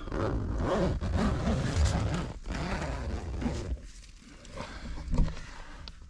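Fjallraven Abisko Lite 2 tent's door zip being pulled open, with the nylon fabric rustling and crackling for about the first three and a half seconds. Then a few quieter rustles and light knocks follow.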